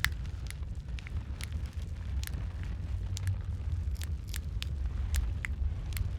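Wood fire in a fireplace crackling, with irregular sharp pops and snaps over a steady low rumble of the flames.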